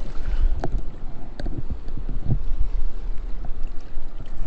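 Wind buffeting the microphone, a loud low rumble over a steady rush of spillway water, with a few faint knocks.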